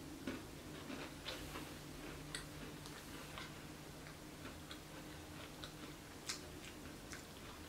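Faint, irregular clicks and crunches of two people chewing bites of a chocolate cookie with a cream filling, over a low steady hum.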